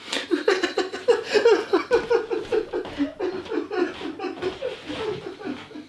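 A person sobbing in quick, high-pitched, choppy bursts, several a second, growing fainter toward the end.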